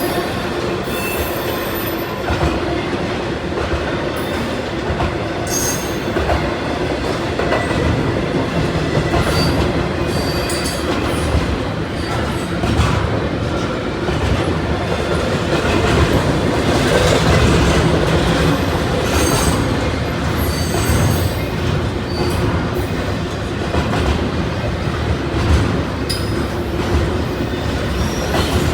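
Norfolk Southern freight train rolling past with a continuous rumble of steel wheels on rail, short high wheel squeals here and there, and clicking over the rail joints.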